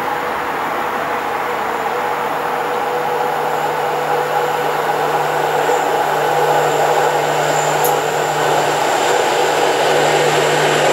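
6Dg diesel locomotive approaching with a freight train, its engine a steady low drone over rail rumble that slowly grows louder as it nears.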